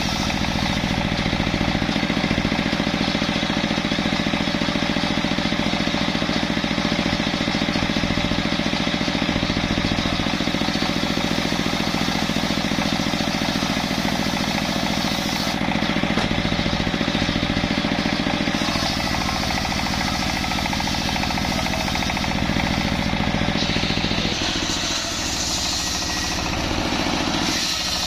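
Stationary single-cylinder diesel engine running steadily, belt-driving a large bench circular saw that is ripping jackfruit-wood planks; the engine's pounding note and the blade's cutting noise run together throughout. The sound shifts near the end, with less low rumble and more hiss.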